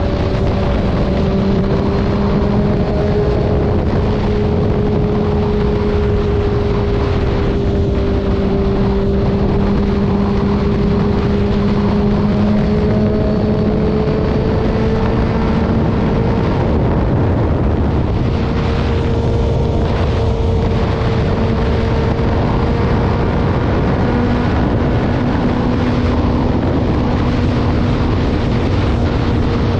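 Motorcycle engine running at a steady highway cruise under heavy wind buffeting on the microphone, its note creeping slowly higher in pitch.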